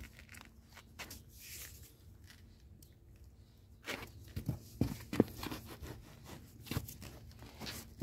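Faint scuffing and crunching on sandy, stony ground, then several sharp knocks and scrapes in the second half as the ground is worked to free a buried pipe.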